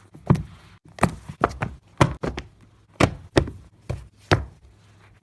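A run of about ten sharp knocks or hits in quick, uneven succession, each one short with a dull low thud under it.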